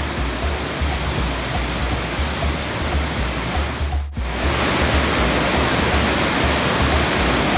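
Hot-spring stream rushing over rocks and a small waterfall, a steady roar of water. It briefly cuts out about four seconds in and comes back louder.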